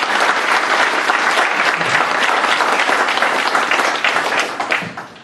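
Room audience applauding, a dense patter of many hands clapping that tapers off near the end.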